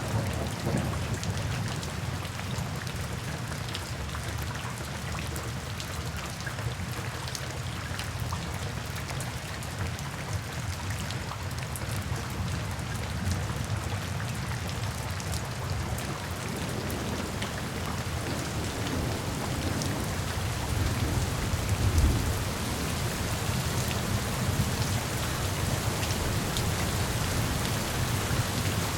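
Steady rain falling, with low thunder rumbling underneath and one louder thunderclap about three quarters of the way through.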